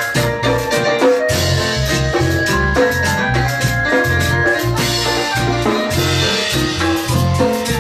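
Small live band playing: an electronic keyboard carries the melody over a drum kit, with a steady bass-drum beat and frequent cymbal strokes.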